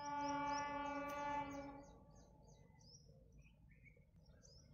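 Horn of an approaching WDG3A diesel locomotive, still out of sight, sounding one steady blast of about two seconds that stops cleanly. Birds chirp throughout.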